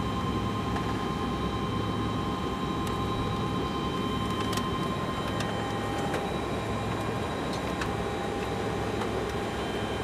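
Boeing 747-200 flight deck noise on the ground: a steady rumble and hiss with several steady whining tones from the engines and cockpit equipment, and a few faint clicks.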